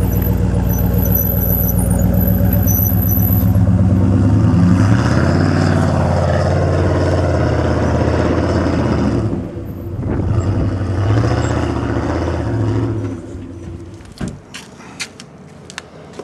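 Hummer H1's V8 engine pulling under load as it climbs dirt slopes off-road, its pitch rising about a third of the way in, dropping briefly past the middle, then rising again before it fades out. A few sharp clicks and knocks near the end.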